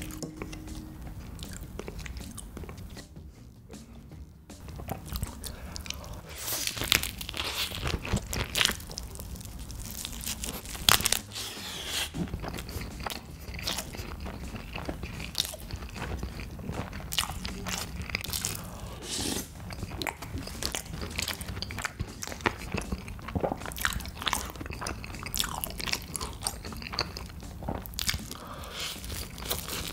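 Close-miked eating sounds: a person chewing and biting food, with many irregular crunchy, wet mouth clicks and a short lull about three seconds in.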